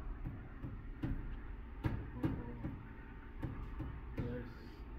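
Low indoor hum with a few soft knocks and clicks, the clearest about two seconds in.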